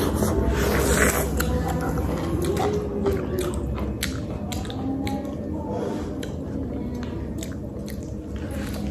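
Wet mouth sounds of eating mango: biting, chewing and sucking at the soft fruit, with many small sticky clicks and smacks scattered throughout.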